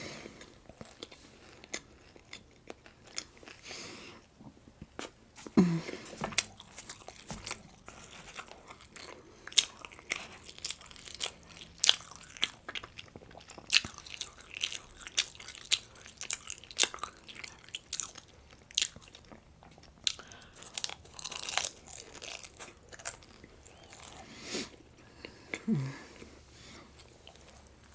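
A person biting and chewing crunchy food close to the microphone, with many small crisp crunches and mouth clicks.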